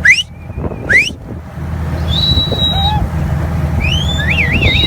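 Dolphins whistling: two quick rising whistles, then a steady high note, then warbling whistles that waver up and down near the end, over a steady low hum.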